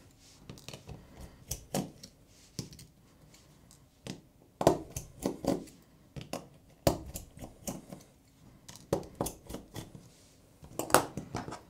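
A Phillips screwdriver undoing the small screws in the upper part of a Samsung Galaxy A20e, heard as scattered light clicks and taps with a few sharper knocks among them.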